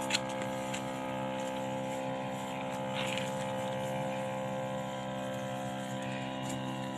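Small electric pump of a battery-powered knapsack sprayer running with a steady hum while it sprays. A short click comes just at the start.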